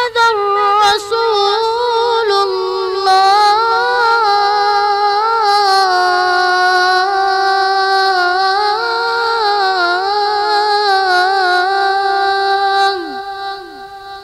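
A muezzin's voice holding one long, ornamented note at the end of a phrase of the adhan (Islamic call to prayer), its pitch wavering up and down. It stops about thirteen seconds in and trails off in the hall's echo.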